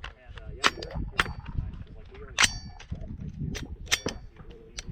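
A rifle being loaded and made ready: about six sharp metallic clacks of magazine and action being worked, the loudest about halfway through with a brief metallic ring.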